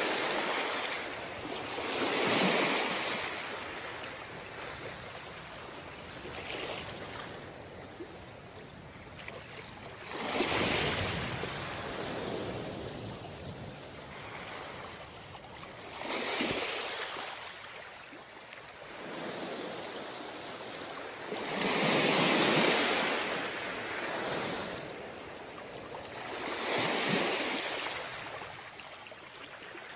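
Ocean surf: waves break on the shore one after another, each a rush of noise that swells and fades every five or six seconds. The biggest wave comes about two-thirds of the way in.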